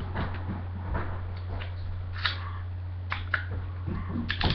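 A steady low electrical hum with a few faint, scattered clicks and taps.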